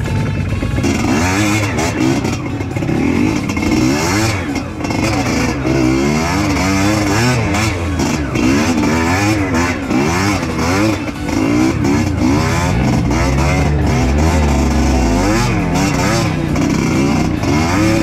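Trail motorcycle engine revving up and down again and again as it is ridden, with frequent short knocks over it.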